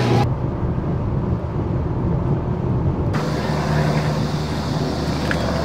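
Steady vehicle rumble. It is muffled engine and road noise at first, then about three seconds in it changes suddenly to a brighter steady outdoor noise with a low drone.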